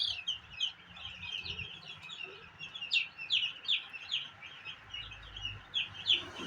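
A flock of broiler chicks peeping, with many short, high peeps overlapping without a break.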